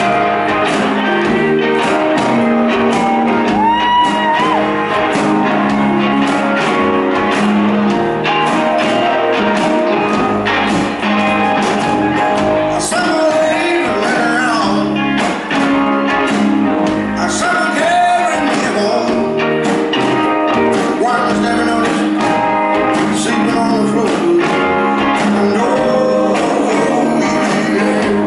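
A rock band playing live, with drums and electric guitar, and a man singing lead into the microphone in a large hall.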